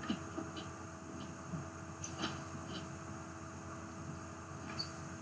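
Faint steady electrical hum and hiss from an open microphone, with a few soft clicks.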